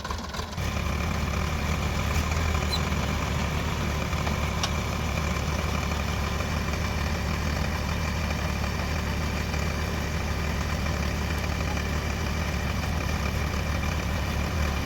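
Diesel engine of heavy earth-moving or farm machinery running steadily at a constant speed, stepping up in level about half a second in.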